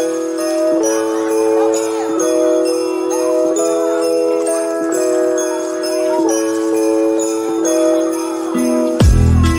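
Background music led by jingling sleigh bells over a steady held chord, with regular light strikes keeping the beat. Just before the end the music changes to a deeper, bass-heavy part.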